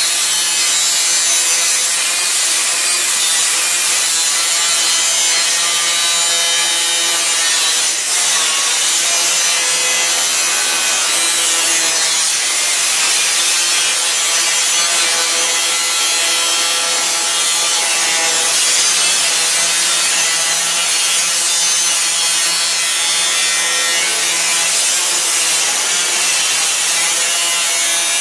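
Angle grinder with a cutting disc cutting through a metal sink top, running steadily at full speed with a constant whine.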